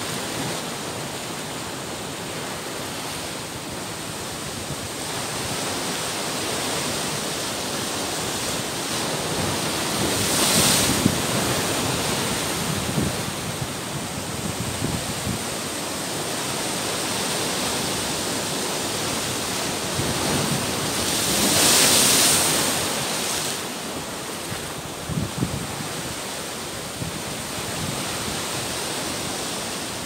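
Indian Ocean surf breaking on a limestone headland and washing through the rocks: a continuous rush of foaming water, with bigger waves surging louder about a third of the way in and again about two-thirds through.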